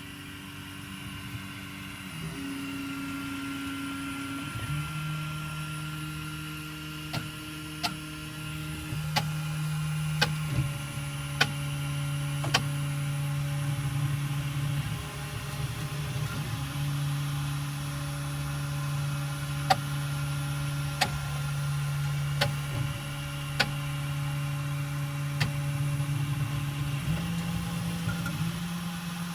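Prusa i3 3D printer printing: its stepper motors hum in steady tones that jump to a new pitch every few seconds. Through two stretches the extruder gives sharp clicks about once a second, the extruder motor clicking and retracting, which the owner suspects is missed steps.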